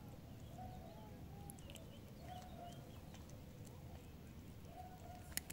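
A cat chewing dry kibble: faint, irregular crunches and clicks, the sharpest about five seconds in, over a steady low background rumble.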